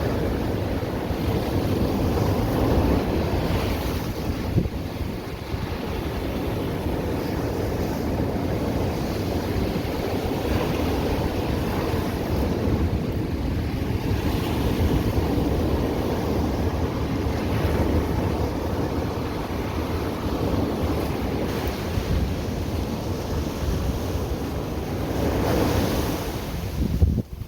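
Atlantic surf washing and breaking on the beach in a continuous rush that swells and eases every few seconds, with wind buffeting the microphone. The sound drops away abruptly at the very end.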